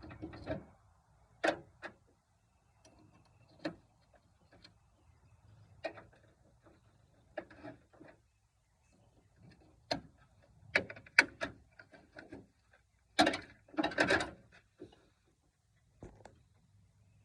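Scattered knocks, clicks and clanks from hand tools and parts being handled while working on a pickup's engine bay, with a denser burst of clatter about thirteen to fourteen seconds in.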